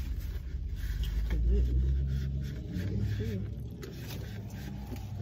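A person's low, wordless voice twice, with light clicks and rustles of plastic takeout containers being handled, over a steady low rumble.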